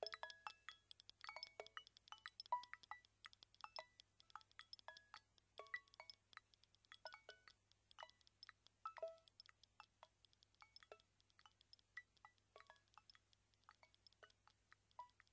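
Faint, sparse instrumental music of short chime-like plinks at scattered pitches, dripping irregularly like raindrops and thinning out toward the end as the track fades.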